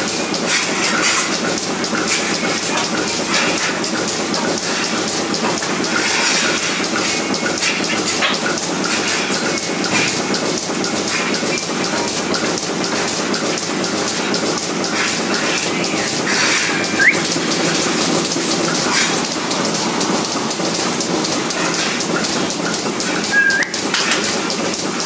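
Water spraying from a hose onto the steel stalls and grated floor of a milking parlour: a steady, rain-like hiss with crackling spatter, and a couple of brief squeaks near the end.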